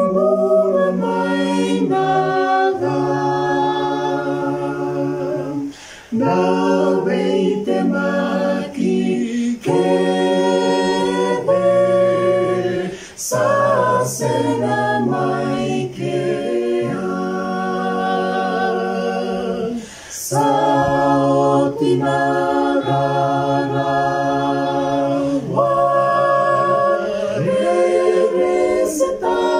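A small mixed group of men's and women's voices singing a hymn a cappella in parts, with long held notes. The singing breaks briefly for breaths between phrases.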